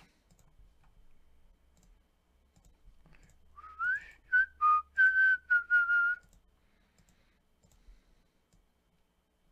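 A person whistling a short run of about seven quick notes, the first sliding upward and the rest short and held level.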